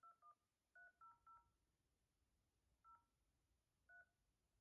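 Phone keypad touch-tones as a number is dialed: about seven short two-tone beeps, several in quick succession at first, then two more spaced out, faint.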